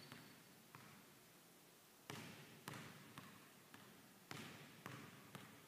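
A basketball being dribbled on a hardwood gym floor, each bounce echoing in the hall. The bounces come unevenly, about one to two a second, with a short pause about a second in.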